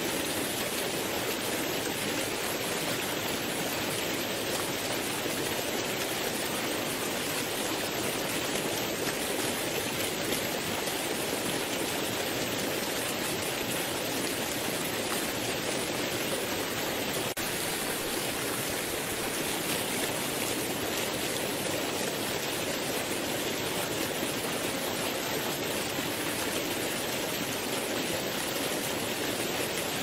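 Waterfall and river rapids rushing steadily, white water pouring and splashing over rocks.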